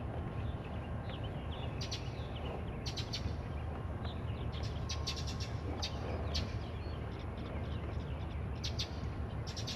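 Small birds chirping off and on over a steady low rumble.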